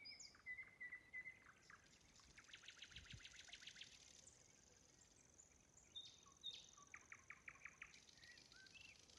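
Faint songbird chirps and rapid trills, with short rising and falling notes between them. A brief low thud comes about three seconds in.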